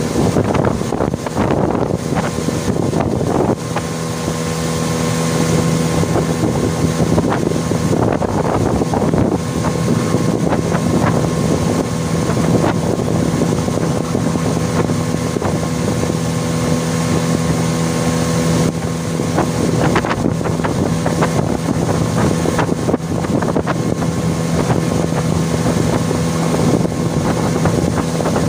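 Small boat's outboard motor running under way, settling into a steady drone a few seconds in, with wind buffeting the microphone.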